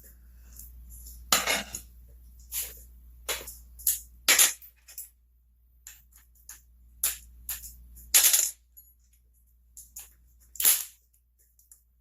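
Irregular sharp metallic clicks and clinks of hand tools on a McCulloch SP81 chainsaw's ignition coil bolts, as the coil is set against the flywheel to set its air gap and the bolts are tightened.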